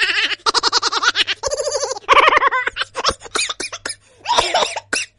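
A comic voice laughing in quick, high-pitched repeated pulses, a funny laughing ringtone.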